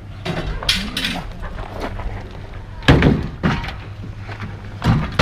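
A heavy piece of curbside scrap being hoisted and dropped into place with loud thunks, one about three seconds in and another near the end.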